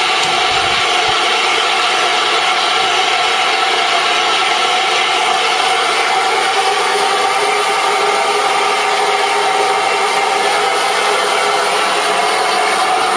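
Steam locomotive hissing steadily at close range: an even, continuous rush of escaping steam with a few faint held tones in it and no exhaust beats.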